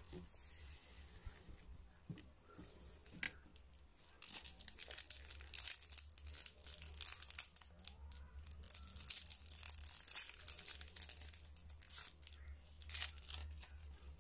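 Crinkly plastic twist wrappers of mini chocolate bars being handled, giving irregular crackles and rustles, heaviest from about four to ten seconds in and again near the end.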